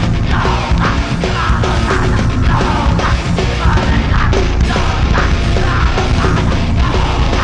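Heavy rock band playing live: loud distorted guitars repeat a short riff over dense, fast drums and bass.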